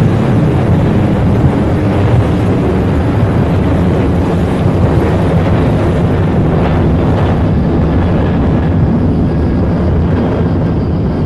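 Loud, steady, deep rumbling noise with no clear pitch or rhythm, like a dense layer of processed field recording.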